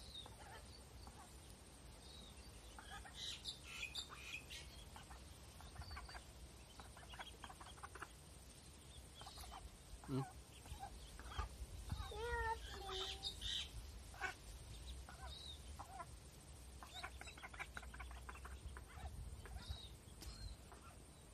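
Ducklings peeping in short, scattered high calls throughout, with a brief run of lower calls about twelve seconds in, likely from the mother duck.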